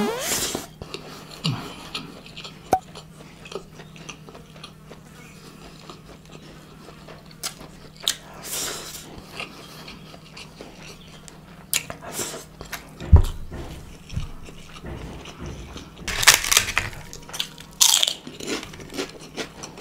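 Close-miked eating of biryani: a big mouthful bitten off by hand, then wet chewing and mouth smacks with scattered sharp clicks, busier near the end. A steady low hum sits underneath.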